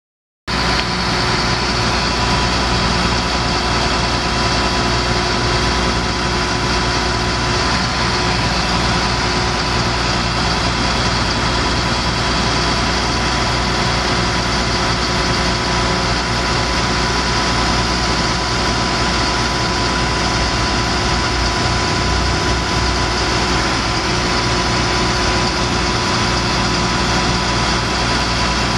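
Caterpillar C7 inline-six diesel engine of a 2002 Chevrolet C7500 truck idling steadily, cutting in about half a second in, with a steady high whine over the low rumble.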